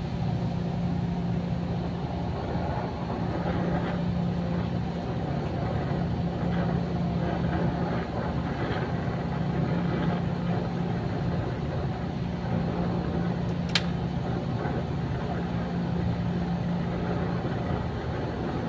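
Steady rushing roar of an oxy-acetylene brazing torch heating the copper pipe joints of a faulty air-conditioning compressor to unsweat it, over a constant low hum, with one sharp click about two-thirds of the way through.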